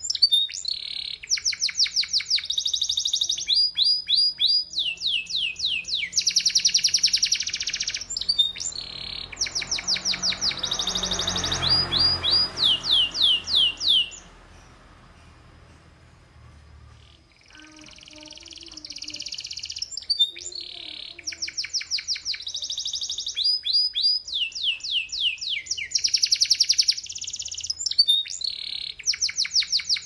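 Domestic canary singing a long song of rapid trills and rolling repeated phrases, with a pause of about three seconds around the middle. A low rushing noise swells and fades under the song just before the pause.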